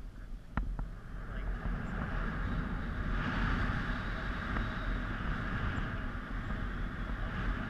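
Wind rushing over a helmet-mounted GoPro microphone in paraglider flight: a steady noise that grows louder and hissier about three seconds in.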